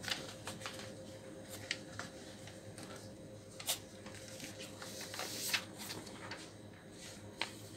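Sheets of paper rustling and being handled as the pages of a document folder are turned and laid flat, with scattered soft ticks and a couple of sharper taps, over a faint steady hum.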